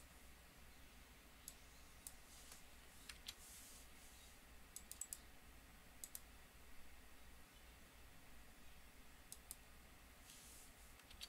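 Faint, scattered clicks of a computer mouse, a few single and some in quick runs, over low room hiss and a faint steady hum.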